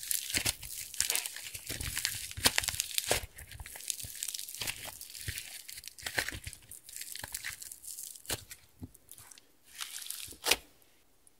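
Hands squeezing and pulling thick slime studded with foam beads: dense, crackly squishing with many sharp little pops. It thins out near the end, with one louder pop just before it stops.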